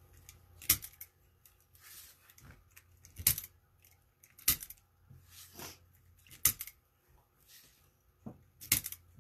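Burlap mesh petals being worked by hand with a hot glue gun: soft rustling of the stiff burlap, broken by five sharp clicks a second or two apart.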